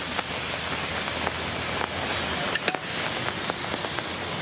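Steady rain falling, with a few light clicks about two and a half seconds in.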